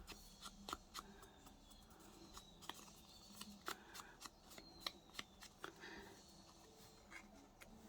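Near silence with faint, scattered taps and rustles of paper and card being handled and arranged on a work surface.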